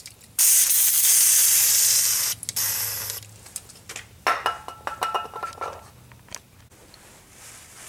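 Aerosol can of brake cleaner spraying, a loud steady hiss of about two seconds and then a shorter burst. About four seconds in comes a rougher, quieter spray-like noise with a faint whistle.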